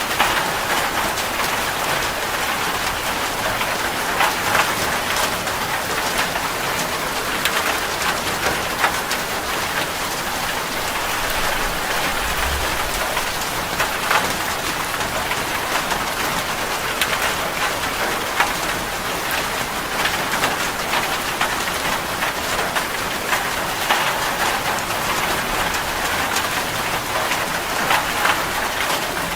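Steady rain falling on a surface, a dense patter of many individual drops.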